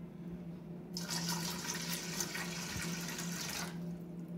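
Water poured from a plastic bottle into a stainless steel pot that already holds some water: a steady pour that starts about a second in and stops near the end.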